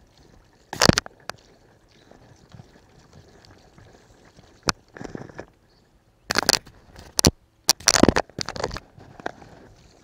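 An irregular string of knocks, clicks and short scrapes. One sharp knock comes about a second in, and a cluster of louder knocks and scrapes falls between about six and nine seconds in.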